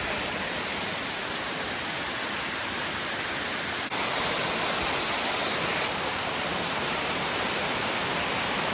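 Waterfall rushing in a steady roar of falling water. There is a brief break about four seconds in, and after it the sound is a little louder.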